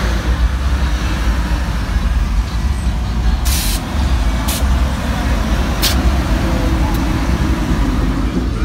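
Lowered Chevrolet S-10 pickup rolling slowly past with a steady low exhaust rumble. Four short hisses of released air cut in, the first about three and a half seconds in and the longest.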